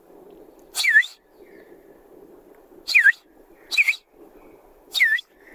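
A man whistling through two fingers to imitate a tapir's call: four short whistles, each dipping in pitch and swinging back up.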